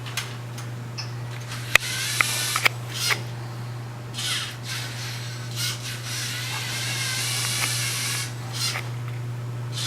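Lego Mindstorms NXT robot's electric servo motors and plastic gears whirring in stretches as it drives and turns, with a few sharp clicks in the first few seconds.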